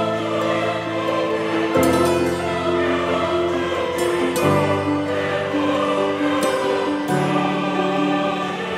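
Background music of long held chords that change about every two and a half seconds.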